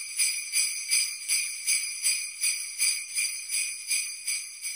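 Sleigh bells jingling in an even rhythm, about two and a half shakes a second, fading out near the end.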